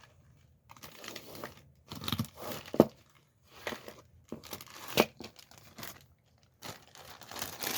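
A bag crinkling and rustling in irregular bursts as jewelry is handled and taken out of it, with two sharp clicks, about three seconds in and five seconds in.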